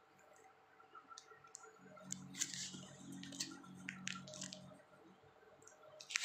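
Close-up eating sounds of a person chewing barbecued satay: wet clicks and lip smacks, busiest from about two seconds in, with a low hum in the middle and two sharper smacks near the end.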